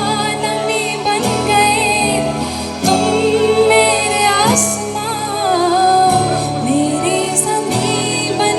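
A band playing a song with a sung melody over held chords that change about every second.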